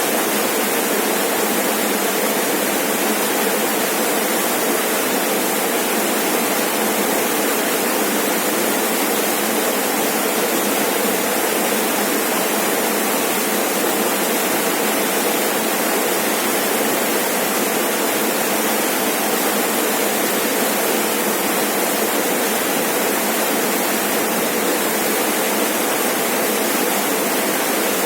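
Rainforest waterfall: water pouring and splashing in a steady, unbroken rush.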